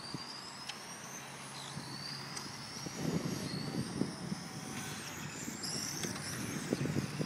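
Small radio-controlled model car's motor whining, its high pitch rising again and again as the car accelerates along the track.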